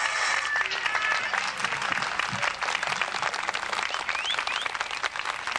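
Audience applauding, a dense spread of hand claps that slowly dies down as the last note of the music fades out at the start. Two short rising whistle-like chirps sound about four and a half seconds in.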